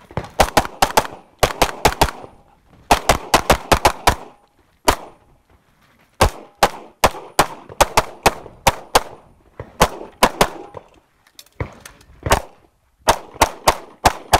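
Rapid strings of pistol shots from a 9mm major 2011 pistol, fired in quick bursts of two to seven shots with short pauses between them.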